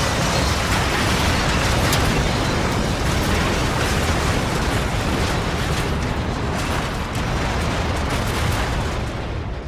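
Train crash sound effect: a loud, dense, continuous din of crashing noise with a few sharp impacts scattered through it, beginning to fade out near the end.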